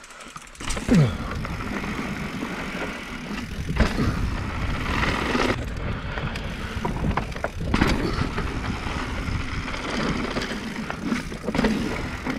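Mountain bike riding down a rough, dusty downhill trail: tyres scrabbling and sliding over loose dirt and rocks, with the bike rattling and knocking over the bumps. A hard thump about a second in, typical of landing a drop.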